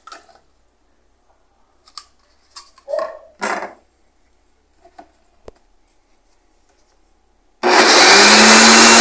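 A few light knocks as the blender jar is handled and its lid fitted, then near the end a countertop blender is switched on and runs loud and steady at full speed, blending a liquid mix of milk, onion, eggs and margarine.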